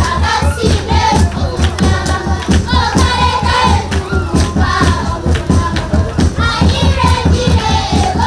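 A group of children singing a song together, led by a girl on a microphone, over a steady beat with hand-clapping.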